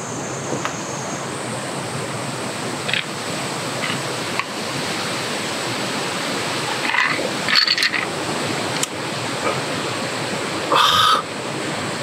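Steady rushing sound of flowing water, like a nearby stream, with a couple of brief voice sounds from the drinker in the second half.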